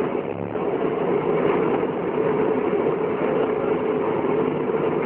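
Steady engine and road noise inside the cab of a moving vehicle.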